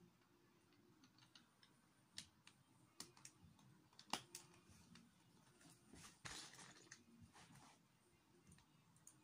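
Plastic Lego bricks quietly clicking and tapping as they are handled and pressed together, in scattered sharp clicks with the loudest about four seconds in. A brief rustle of pieces follows about six seconds in.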